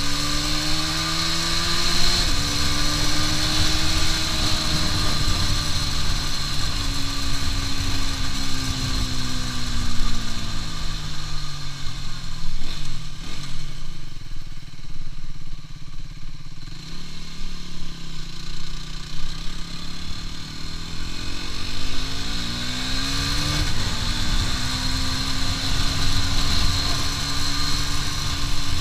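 Aprilia RS4 125's single-cylinder four-stroke engine heard from the rider's seat, under heavy wind noise on the microphone. About a third of the way in the revs drop away and the engine goes faint for a few seconds, then the revs climb again and hold steady.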